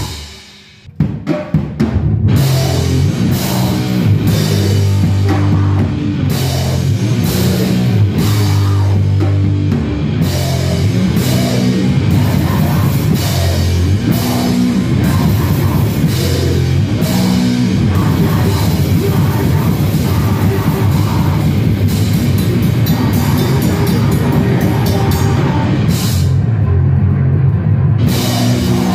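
Live heavy metal band of drum kit, distorted bass and electric guitar. The music stops abruptly at the start, a few single drum hits follow about a second in, then the full band crashes back in loud with pounding drums, cymbals and heavy low bass riffs. Near the end the cymbals drop out for a couple of seconds while the bass and guitar keep going.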